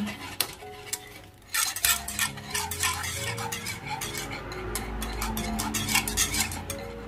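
A utensil stirring and scraping in a pot of glutinous rice flour paste as it cooks and thickens, with many quick clicks and scrapes against the pot.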